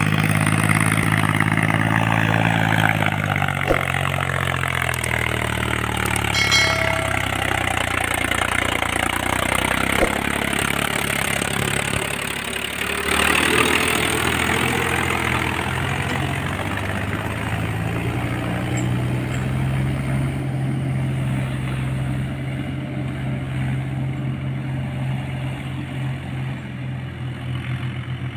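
Mahindra 265 DI tractor's three-cylinder diesel engine pulling a loaded trolley of sand. Its note drops over the first few seconds, passes close with a shift in pitch about halfway through, then holds a steady drone as the tractor moves off.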